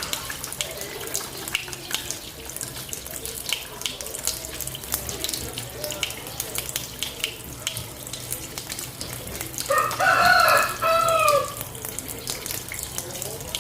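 Tap water running into a sink and splashing as hands are washed. About ten seconds in a rooster crows loudly, a two-part call lasting about a second and a half.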